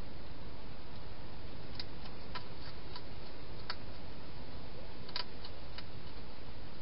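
A wild hedgehog eating from dishes in a plastic feeding box: sharp, irregular clicks and crunches, about eight between two and six seconds in, over a steady hiss.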